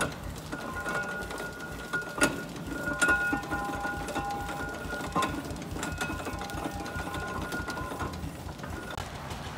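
Fowler steam roller running as it creeps forward, with a steady rhythmic mechanical beat and a few sharp clanks. Several steady high tones start and stop over it.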